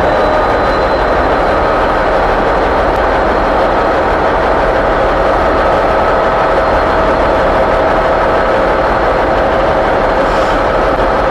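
Class 66 diesel-electric freight locomotive idling while standing still: its EMD two-stroke V12 diesel engine running loud and steady, with a thin steady whine over it.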